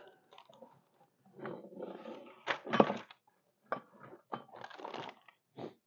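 Handling noise as plow points are picked up and moved about: a series of irregular knocks and scrapes, one knock a little under three seconds in giving a brief metallic clink.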